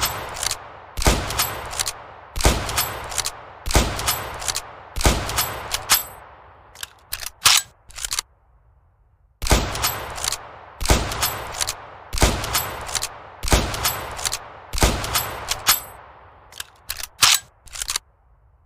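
Hanyang 88 bolt-action rifle (7.92 mm Mauser) fired in two strings of aimed shots about one and a third seconds apart, each shot echoing and followed by the bolt being worked. A run of sharp metallic clicks ends each string, about halfway through and again near the end.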